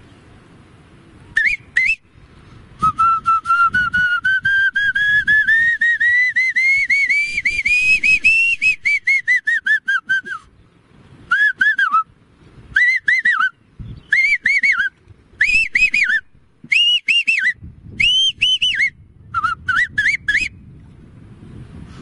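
A man whistles through his fingers, imitating a white-rumped shama's song. A long run of rapid warbling notes slowly rises in pitch and then falls, followed by short repeated groups of two to four quick notes.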